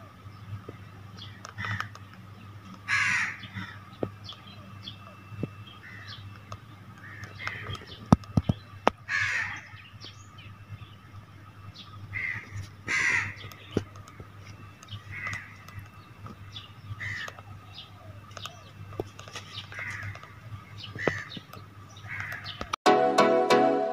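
Crows cawing repeatedly, one harsh call every second or two, over a steady low hum. Near the end, loud music cuts in suddenly.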